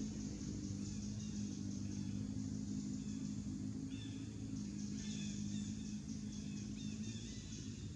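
Outdoor ambience: a steady low hum runs under a steady high hiss, with short bird chirps starting about halfway through.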